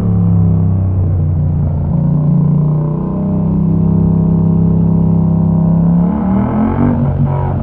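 Yamaha MT-07's 689 cc parallel-twin engine running through a Mivv exhaust with the dB killer removed, held at steady revs. About six seconds in it revs up sharply, rising in pitch, then breaks off briefly near the end.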